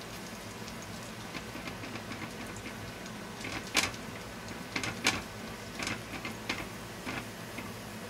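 Chopped garlic frying in a pool of oil in a tilted stainless steel pan over a gas flame: a steady low sizzle, with a cluster of sharp pops and crackles from about three and a half to seven seconds in.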